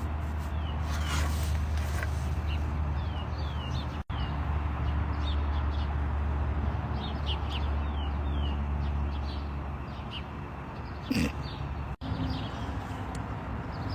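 Small birds chirping, many short falling chirps scattered through, over a steady low hum. There is a brief louder sound about eleven seconds in.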